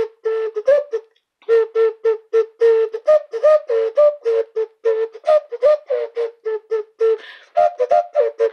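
Short, breathy tooting notes blown into a breast-shaped toy wind instrument held to the mouth: a quick run of notes, mostly on one low pitch, with an occasional step up to a higher note.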